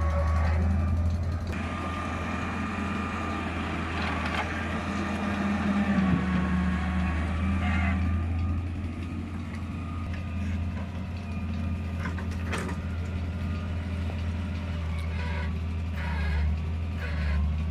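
Diesel engines running steadily as a hydraulic excavator loads earth into a Massey Ferguson 385 tractor's trolley. A whining tone bends up and down in pitch, and a few sharp knocks stand out.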